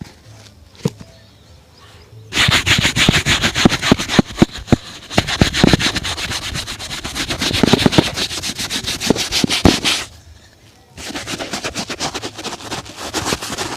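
Shoe brush scrubbed fast and hard across a shoe, giving a quick run of sharp scratching strokes. The strokes start about two seconds in, stop briefly near ten seconds, then start again.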